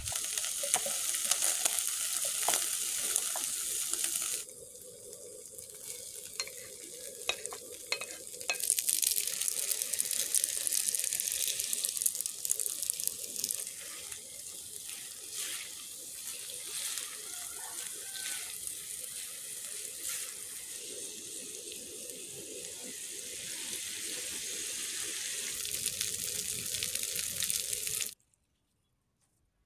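Tofu and pasta sizzling in hot oil in a frying pan while being stirred, with a wooden spatula and chopsticks clicking and scraping against the pan. The sizzle cuts off suddenly near the end.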